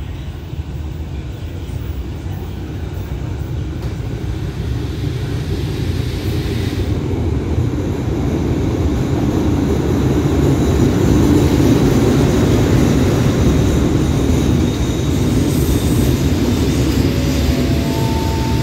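Ordinary passenger train arriving behind two Alsthom diesel-electric locomotives: a low rumble that grows louder as the locomotives pass, then the coaches rolling by as the train slows, with a thin squeal near the end.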